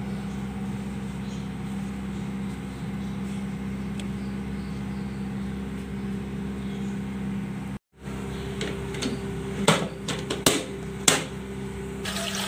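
Steady electric motor hum, as from a kitchen fan or appliance, cut off briefly by an edit about eight seconds in. After the edit come a few sharp plastic knocks and clicks over the same hum, as the water cooler's lid is handled.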